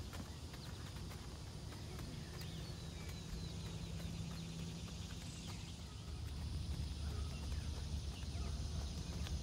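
A ridden horse's hoofbeats, dull and faint on sand arena footing as it canters and trots, over a steady low rumble that grows louder about six seconds in.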